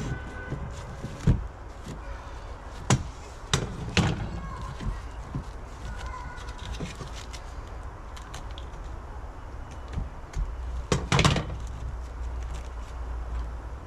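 Irregular knocks and clunks over a steady low rumble, with the loudest cluster of knocks near the end.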